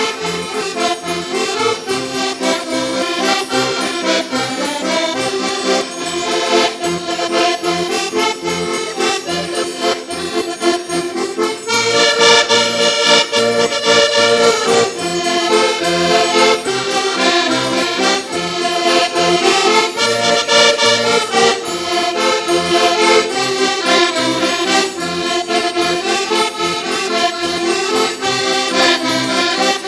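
Several Portuguese concertinas (diatonic button accordions) play a lively traditional folk tune together over a steady beat from a bass drum and a triangle. The music grows fuller and louder about twelve seconds in.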